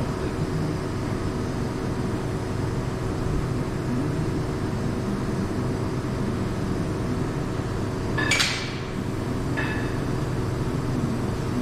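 Steady workshop hum, with one sharp metal clank about eight seconds in and a lighter clink just over a second later: hand tools knocking against the car's steel underbody and suspension parts.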